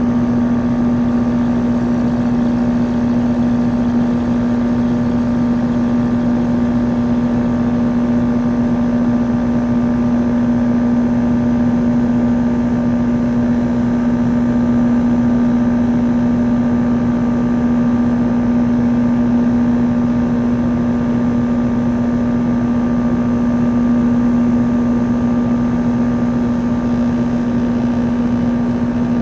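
Trane XE1200 2.5-ton condensing unit running steadily, freshly started: the Climatuff compressor gives a loud constant low hum, with a steady rushing noise from the unit's condenser fan under it.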